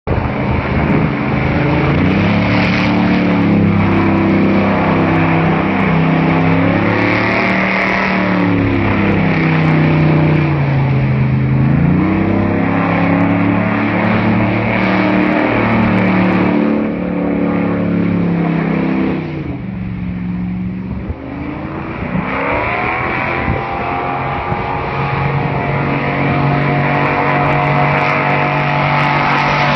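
A boat's engine running hard, its pitch rising and falling as it speeds and turns. It drops off about twenty seconds in, then revs back up with a rising whine.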